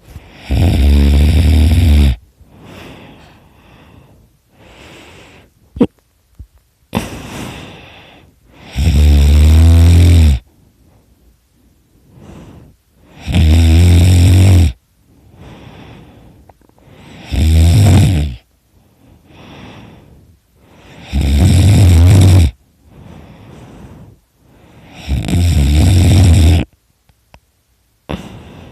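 A sleeping man snoring extremely loudly: six long, loud snores about every four seconds, with quieter breaths between them.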